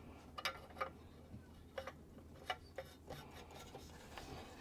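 Threaded pipe fitting being screwed on over Teflon tape: faint rubbing with several light clicks.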